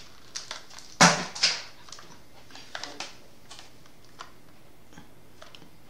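Plastic gaming headset being handled and turned over: scattered small clicks and rustles, with two louder handling noises about a second in.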